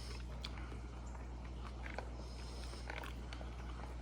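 A person chewing a mouthful of mussels: faint wet mouth clicks and smacks every half second or so, over a steady low hum.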